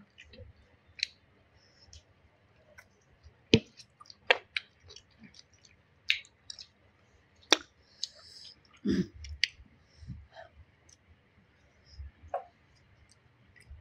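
Eating sounds at a meal: scattered sharp clicks and light knocks of utensils and dishes, with chewing, a few of the clicks louder than the rest.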